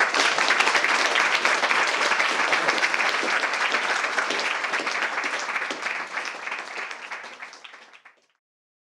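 Audience applauding: many hands clapping densely, then fading away and stopping about eight seconds in.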